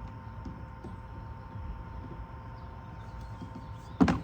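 A single sharp knock near the end as a car trim part is pushed into place, over a low steady rumble and a faint steady hum.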